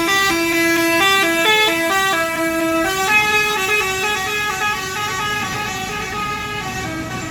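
Telolet musical air horn playing a quick tune of stepping notes; about three seconds in a softer run of notes at different pitches takes over.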